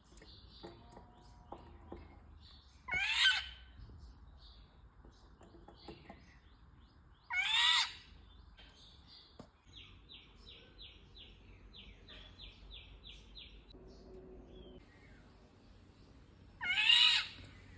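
Birds calling, taken for Indian golden orioles: three loud, harsh, rasping calls about half a second each, at about three seconds, seven seconds and near the end. Between them are softer high chirps, including a quick run of about four notes a second in the middle.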